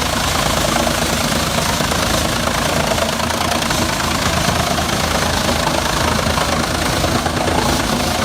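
Large engine running steadily under load, with a dense, even mechanical rumble.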